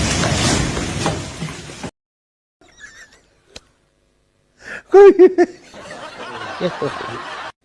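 A loud noisy rush that cuts off suddenly about two seconds in, then, after a pause, a loud burst of laughter in four quick 'ha-ha' pulses, with softer laughing and noise after it.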